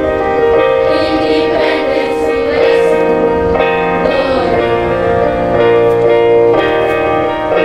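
Children's choir singing with instrumental accompaniment, holding long sustained notes.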